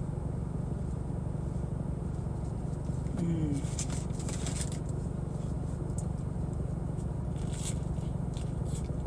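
Steady low rumble of a car engine left idling, heard inside the car. A plastic ranch sauce cup is being peeled open with crinkling and scraping about three seconds in, and again briefly near the end.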